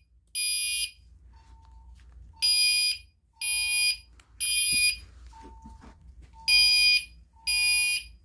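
Gentex Commander 3 fire alarm horn sounding the temporal-3 evacuation code: three loud, harsh half-second blasts about a second apart, a pause of about a second and a half, then three more. A much fainter steady tone beeps between the blasts, from the speaker strobe running alongside.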